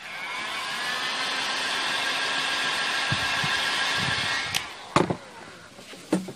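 Electric heat gun blowing hot air onto contact glue on a foam seat edge, its fan motor running with a steady whine and rush of air, speeding the glue's tack. It starts at once and stops about four and a half seconds in, followed by a couple of short knocks.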